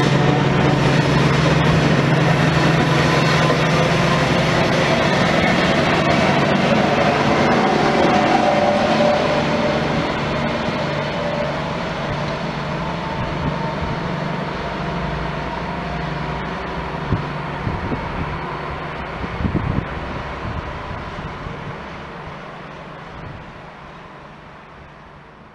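A regional train hauled by a DB Class 218 diesel-hydraulic locomotive pulling away: coaches rolling over the rails and a low diesel engine drone, dying away gradually as the train recedes.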